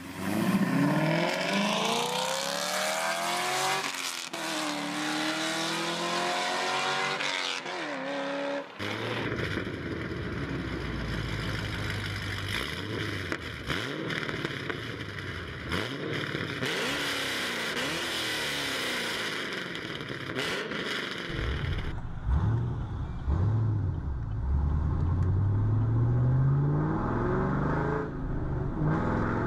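V8 car exhaust being revved and accelerated, the pitch rising and falling through repeated revs. The sound changes abruptly about nine seconds in and again a little past twenty seconds, as if separate recordings were joined. The last part is deeper, with long rising pulls.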